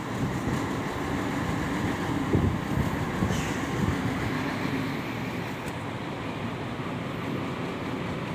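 Truck-mounted mobile cranes' diesel engines running steadily with a low rumble, with a few short knocks about two to four seconds in.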